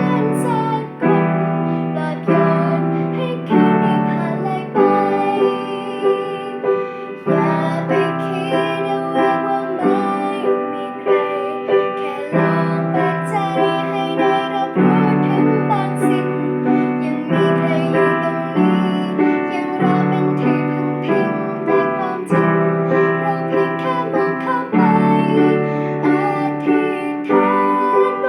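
Piano playing a slow pop ballad in sustained chords, with a young woman singing the melody over it.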